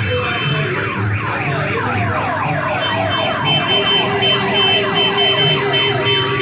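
Electronic vehicle sirens: from about a second in, a fast run of falling sweeps, several a second, with a steady high tone joining about halfway through, over a low pulse from the slow-moving vehicles.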